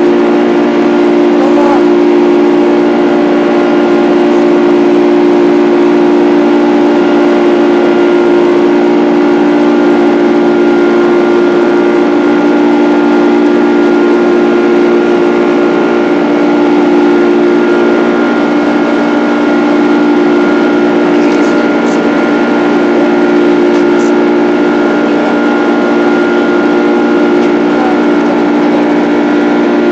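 Boeing 767 jet engines heard inside the cabin: a loud, steady drone with a low hum and a higher whine, both held at constant pitch.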